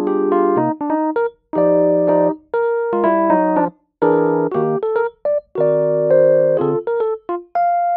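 Background piano music: chords and melody notes played in short phrases, broken by several brief silences.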